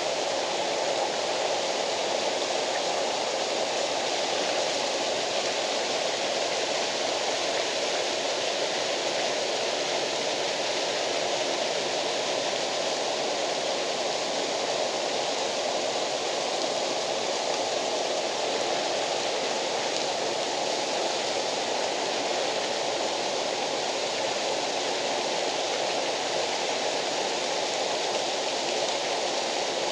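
Waterfall running, a steady, unbroken rush of water.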